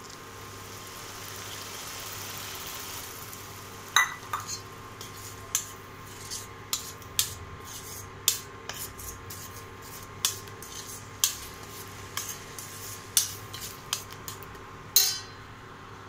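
A metal fork clinking and scraping against a metal pan in irregular strokes as beaten eggs are stirred into a tomato-onion masala. A soft hiss comes first, before the clinks begin.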